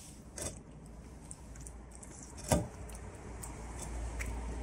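A cat eating from a bowl: faint clinks and ticks, with two short knocks, the louder one about two and a half seconds in, over a low rumble of wind.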